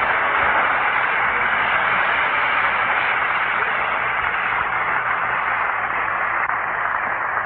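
Audience applauding in a packed hall, a dense, steady wash of clapping heard through an old, muffled recording, easing off slightly near the end.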